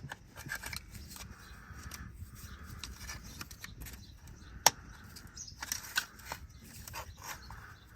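Small clicks and rubbing as a hose clamp is undone and a rubber turbo pipe is worked loose by hand, with one sharp click a little past halfway.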